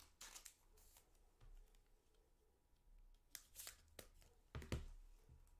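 Faint rustles and slides of trading cards being handled, a few short swishes near the start and again toward the end.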